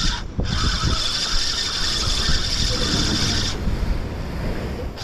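Spinning fishing reel being cranked, a steady whirring that stops about three and a half seconds in and starts again near the end. Wind buffets the microphone throughout.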